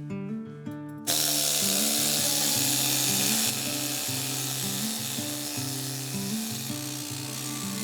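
Background music with a repeating bass line. About a second in, the steady rasping noise of a power tool stripping rust starts over it. It is loudest for its first couple of seconds and then carries on a little lower.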